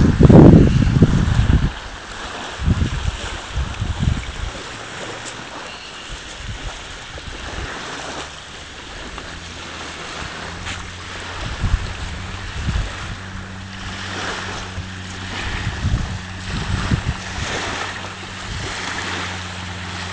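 Wind buffeting the microphone, loudest in the first couple of seconds, then in lighter gusts over a steady outdoor hiss. From about eight seconds in a low steady hum joins, like a distant engine running.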